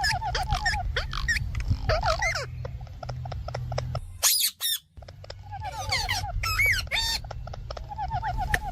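Indian ringneck parakeet squawking and chattering: runs of quick short notes, bending whistled calls, and a shrill screech about four seconds in.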